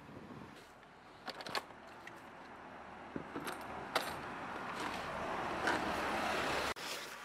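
Metal litter picker clinking and scraping on the pavement in scattered sharp clicks. Behind it a hiss of passing traffic builds from about halfway through and cuts off suddenly near the end.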